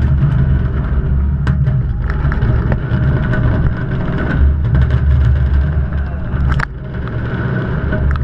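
Fireworks display: a continuous low rumble of shell bursts with sharp cracks scattered through it, a loud crack about a second and a half in and another about six and a half seconds in.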